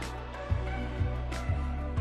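Background music with a steady beat of about two a second over a bass line.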